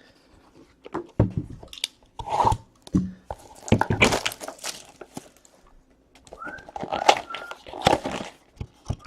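Trading card packs and cards being handled and opened: irregular crinkling and tearing of pack wrappers with short clicks and rustles of card stock.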